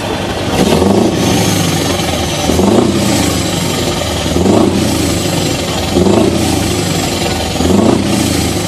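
Scania R560 truck's V8 diesel revved in five short throttle blips, about one every two seconds, each rising and falling back to idle.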